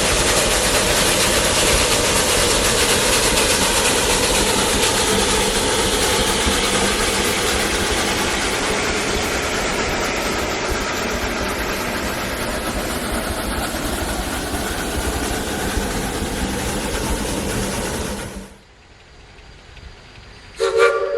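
Narrow-gauge steam train running loud and steady with rail and wheel noise, cutting off abruptly after about eighteen seconds. Near the end a steam whistle starts to blow, a chord of several tones.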